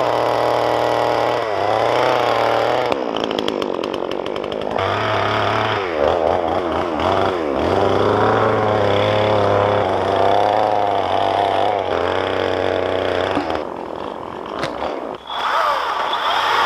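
Chainsaw running at high revs while cutting through downed trees, its pitch rising and falling as it works through the wood. It eases off briefly about three seconds in and again near the end.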